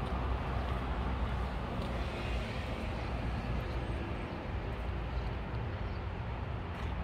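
Steady outdoor background rumble and hiss, heaviest in the low end, with no distinct events.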